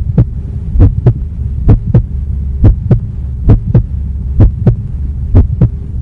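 Heartbeat: paired 'lub-dub' thumps at a steady slow pace of about one beat every 0.9 seconds, seven beats in all, over a steady low hum.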